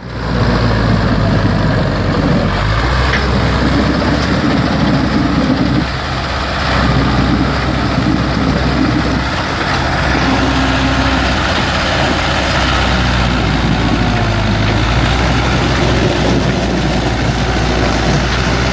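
Ursus C360 tractor's diesel engine running steadily, with a brief dip in level about six seconds in.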